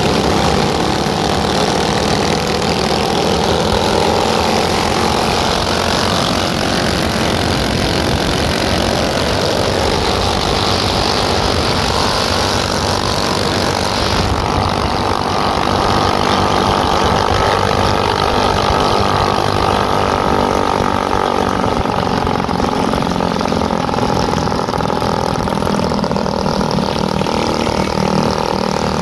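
Motorcycle engine running steadily while riding, with rushing wind and road noise. About halfway through, the high rushing noise drops off suddenly and the engine carries on.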